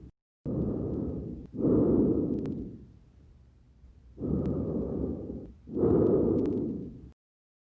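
Breath sounds heard over the front of the chest, simulating pneumonia: two breaths, each an inhale and an equally loud exhale with a short gap between them, with a few sharp clicks. The sound cuts off suddenly near the end.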